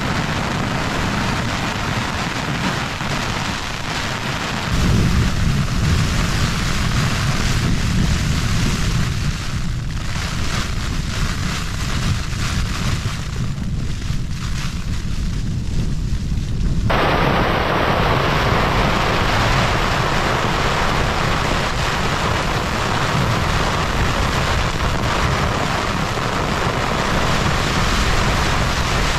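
Strong wind buffeting and hail drumming on a Fjallraven Abisko Lite 2 tent, heard from inside. The wind makes a heavy low rumble that grows about five seconds in, and the hail comes down much harder a little past halfway.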